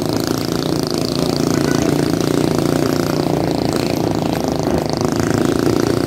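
Small motorcycle engine running steadily while riding, heard from the rider's seat, under a haze of road and wind noise.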